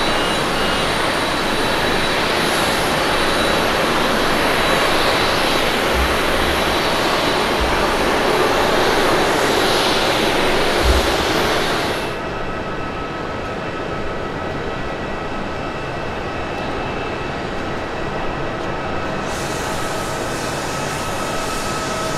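Jet airliner noise: a Boeing 787-8's engines and its rollout down a wet runway make a loud, steady rushing sound, with a few dull low thumps. About halfway through this gives way to a quieter, steady whine from an Airbus A320's engines as it comes in to land.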